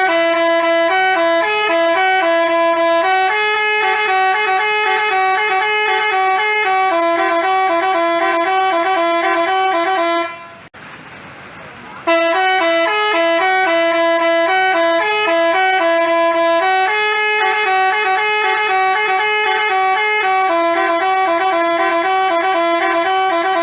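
Multi-tone telolet basuri bus horn playing a quick stepping melody for about ten seconds, stopping briefly, then playing the same tune again.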